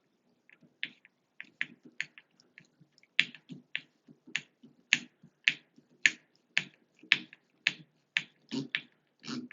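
Sharp clicks from shower faucet trim parts being worked into place by hand: a few scattered at first, then a steady run of about two a second.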